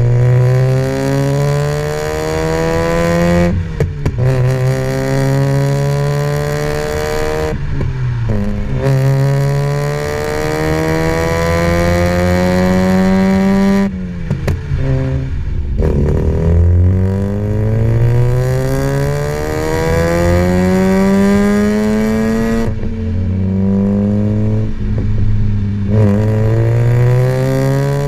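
Mazda RX-8's 13B Renesis rotary engine, breathing through a high-flow cat and stainless cat-back exhaust, pulling hard through the gears. The note climbs steadily for several seconds and then drops at each shift, about five times, with short crackles and pops from the exhaust at the breaks.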